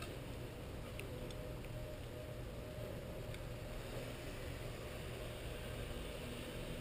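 Steady low background rumble with a faint hiss, and a few faint ticks.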